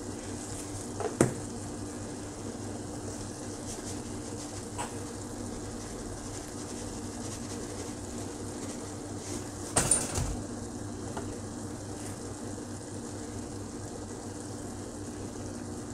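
Onion, pepper and tomato stew base sizzling gently in a pot, a steady low hiss with a faint hum under it. A small click about a second in and a brief rattle about ten seconds in, as seasoning containers are handled over the pot.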